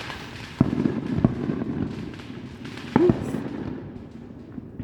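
Consumer fireworks going off: three sharp bangs, about half a second, just over a second and three seconds in, with crackling between them.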